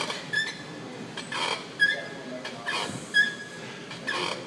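Leg extension machine squeaking in a steady rhythm, a short high squeak about every second and a half as the weighted pad swings through each rep, with a brief noisy rush between squeaks.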